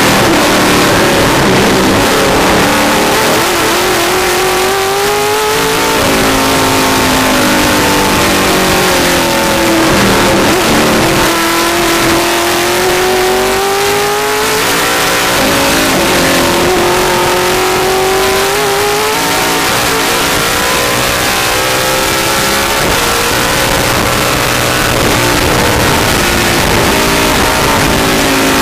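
Vintage Ford Mustang race car's V8 heard from inside the car at racing speed, revs climbing and then dropping sharply several times as it shifts gear, with steady wind and road noise underneath.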